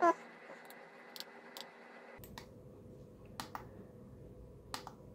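Scattered sharp plastic clicks, about eight in five seconds, from a hand handling a small plastic-cased homemade oscilloscope and its push buttons. A brief squeak comes right at the start.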